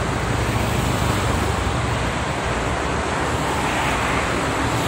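Steady rush of multi-lane highway traffic: cars, trucks and buses passing at speed, tyre and engine noise blending into one even roar, with some wind on the microphone.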